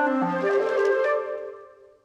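A Nokia 105 mobile phone ringtone: a short synthesized melody of several overlapping notes that fades out over the last second.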